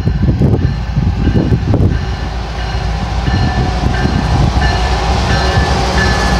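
Two diesel freight locomotives at the head of a grain train running past close by, a loud heavy rumble. From about two and a half seconds in, thin high whining tones come and go.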